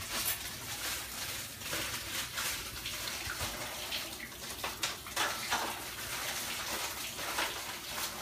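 Water running from a kitchen sink tap as hands are washed under it, with irregular splashes.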